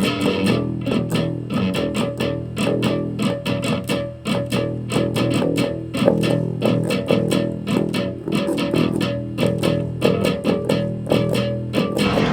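Instrumental intro of a rock song: guitar and bass guitar playing over a steady, evenly spaced beat.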